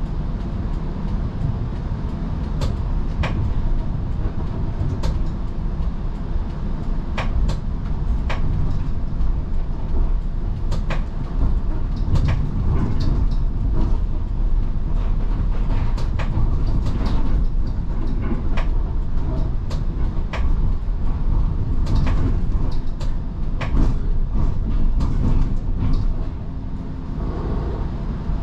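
Streetcar running along its rails: a steady low rumble with frequent sharp, irregular clicks and rattles.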